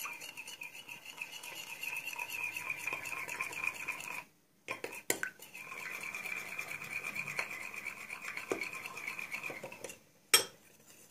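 Metal fork stirring fast in a glass bowl, its tines clinking and scraping against the glass in a quick, even rhythm as liquid gel detergent is worked into glue and water to make slime. The stirring breaks off about four seconds in and again near the end, and one sharp click comes just before the end.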